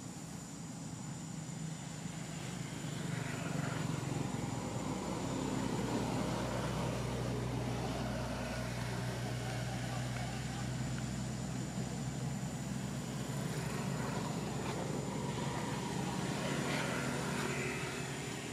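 Low engine drone of a passing vehicle or aircraft, swelling over the first few seconds, holding, then easing near the end, with a thin steady high-pitched tone throughout.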